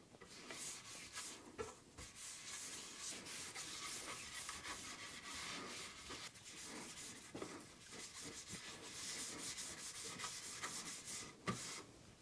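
Gloved hands rubbing beeswax balm into the teak staves of a wooden drum, a soft, continuous swishing of glove on wood. There is one light knock near the end.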